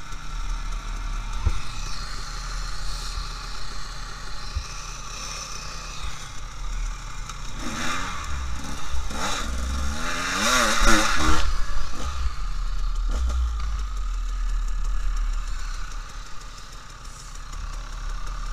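Dirt bike engine running, with clatter and rattle from riding over rough ground; about eight seconds in the revs rise and fall unevenly for a few seconds, then settle back.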